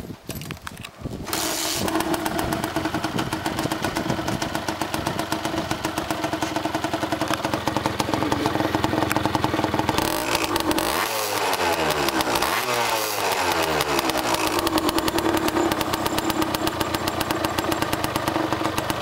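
Kawasaki KSR-II's 80cc two-stroke single engine, breathing through a Pro SKILL Parts expansion chamber and silencer, starts about a second in and idles steadily. It is revved twice about halfway through, then settles back to idle.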